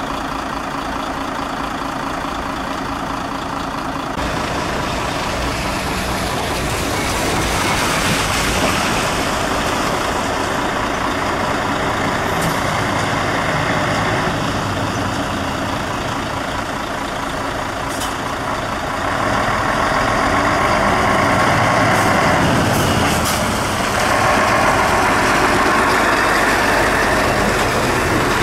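Diesel engines of fire trucks running and moving off. The engine noise swells as one truck passes close by near the end.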